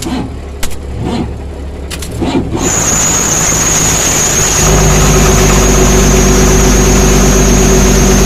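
Diesel engine of a JCB 432ZX wheel loader being started. After a few knocks, a high steady whine comes in about two and a half seconds in. The engine catches about four and a half seconds in and settles into steady running, the end of a no-start problem.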